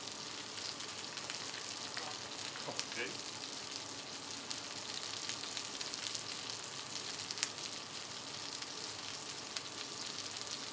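Chicken wings and slider patties frying on a hot flat-top griddle: a steady sizzling hiss with scattered small pops and crackles of spitting fat.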